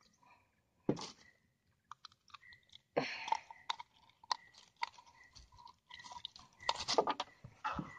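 Clear plastic bag crinkling and rustling as it is handled, in irregular bursts full of small crackles, densest about three seconds in and near the end. A single sharp knock about a second in.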